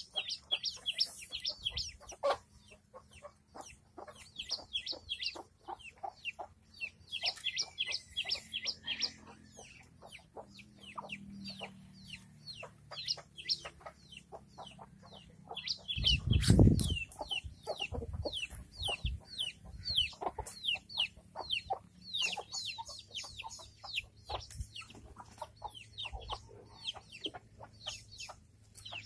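Domestic chick peeping over and over, short high cheeps that slide downward, several a second, with hens clucking low underneath. A single loud thump comes a little past halfway.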